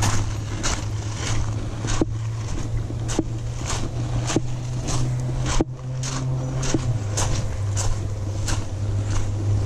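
Footsteps crunching on a gravel path at an even walking pace, about one step every half second or so, over a steady low hum.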